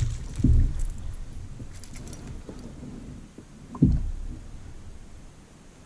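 A hooked bass being landed into a kayak: a splash-and-thump about half a second in, and a sharper knock against the kayak about four seconds in as the fish comes aboard, then quieter handling.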